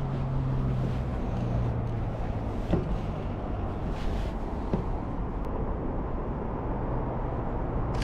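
Steady low rumble of road traffic, with two faint clicks about three and five seconds in.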